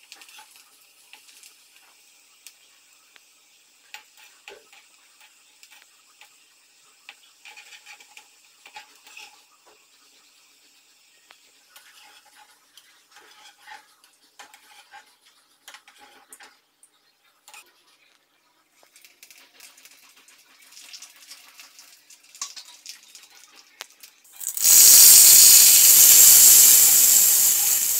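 Food frying in hot oil in a metal kadai, with a slotted spoon clinking against the pan as pieces are stirred and lifted out. About 25 seconds in, a sudden loud sizzle as more food goes into the hot oil.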